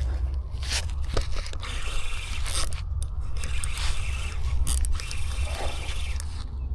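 Steady low rumble of wind buffeting the microphone, with irregular scraping and rustling handling noise over it.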